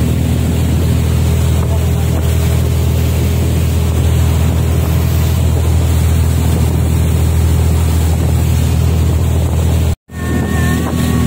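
Small passenger ferry's engine running at a steady pace under way, with water churning in the wake and wind buffeting the microphone. The sound cuts out for a moment near the end.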